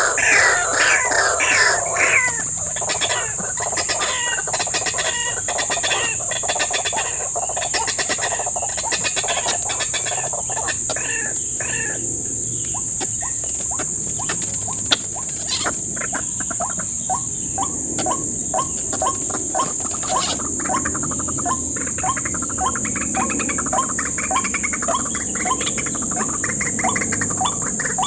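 White-breasted waterhens calling. A quick run of falling notes opens the stretch, then a long, steady series of short repeated call notes follows. A constant high-pitched buzz sits underneath.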